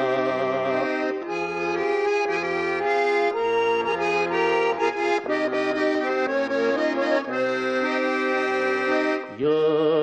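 Instrumental break between the sung verses of a folk song: a melody played over a changing bass line, with no singing.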